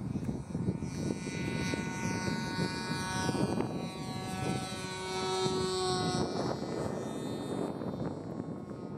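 Motor and propeller of a radio-controlled model tow plane flying past, its even hum loudest around the middle and fading towards the end, over gusty wind on the microphone.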